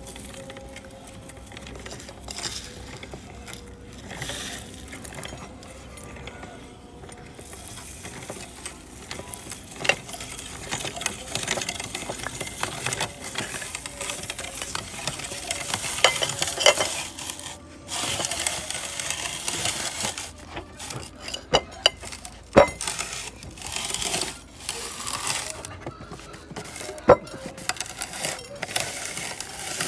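Hand-cranked metal meat grinder crushing unhusked paddy rice in its auger: a dry, crackling crunch of husks breaking, broken by sharp clicks and knocks. The crunching grows louder about a third of the way in as more grain goes into the hopper.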